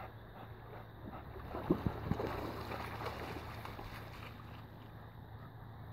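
Open water lapping, with wind rumbling on the microphone and a few soft thumps about two seconds in.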